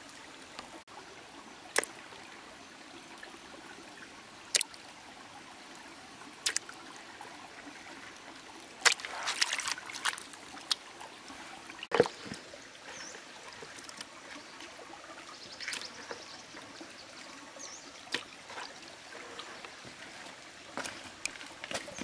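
Water trickling steadily, with scattered sharp knocks now and then and a busier run of them about nine seconds in.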